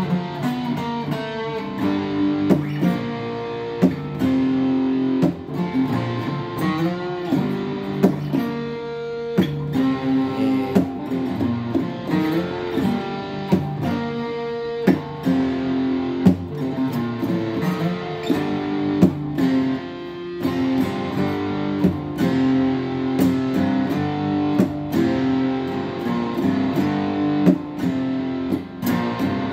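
Acoustic guitar being played solo, plucked notes and chords ringing and changing about every second.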